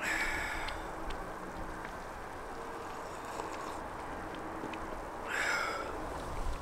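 Two short slurps from a mug, one at the start and one about five seconds in, over a steady outdoor hiss.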